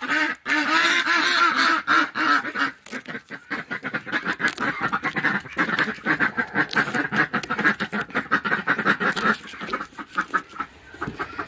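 Domestic ducks quacking in a rapid, continuous string of calls that thins out near the end.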